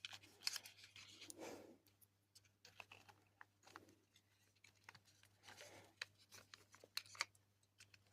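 Faint, scattered clicks and scrapes from handling small parts: servo motors and spacer blocks being fitted into a robot's casing.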